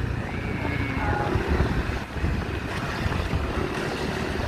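Wind buffeting the microphone on a moving motorcycle, a steady rumbling rush, with the motorcycle's engine running underneath.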